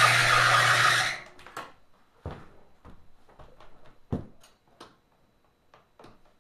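Kenmore sewing machine driven by a 3/4 hp motor, running flat out with a loud whir and a steady low hum, then cutting off abruptly about a second in. A scatter of light clicks and knocks follows.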